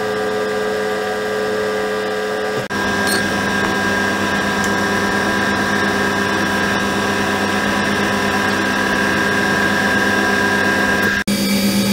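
Steady machine hum holding a few fixed pitches, broken by two abrupt cuts, about two and a half seconds in and near the end.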